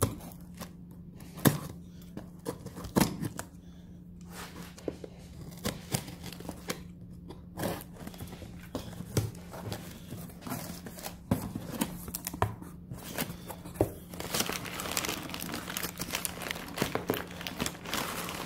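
Cardboard parts box being opened by hand: taped flaps torn and pulled open with scattered scrapes and taps, then crumpled paper packing rustled inside it, the rustling getting denser over the last few seconds.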